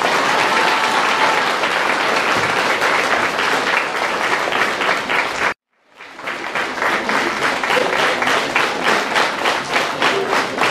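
Audience applauding steadily. After the sound cuts out for a moment about halfway through, the applause turns into rhythmic clapping in unison, about three claps a second.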